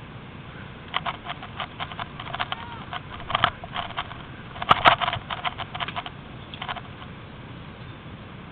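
Irregular crackling and snapping of dry twigs and brush as someone pushes through undergrowth, in uneven bursts that are loudest about halfway through.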